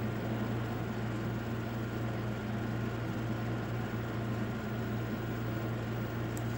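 Steady low hum with an even hiss underneath: room background noise with no speech.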